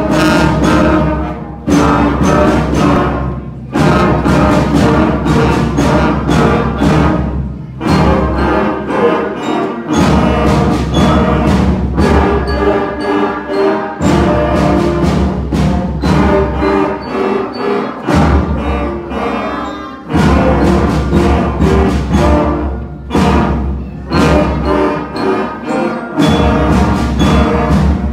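A fifth-grade school concert band playing a lively piece on flutes, brass and drums, with loud accented hits about every two seconds.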